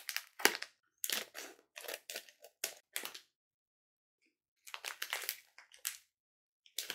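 Plastic pouch of Mini Tum Tums sweets crinkling and crackling in the hands as it is torn open, in short clusters with a pause of about a second and a half in the middle.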